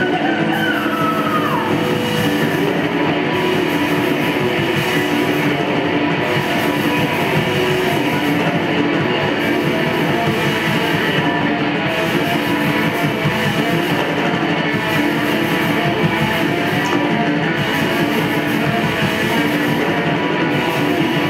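Thrash metal band playing live: distorted electric guitars, bass guitar and drum kit, loud and unbroken.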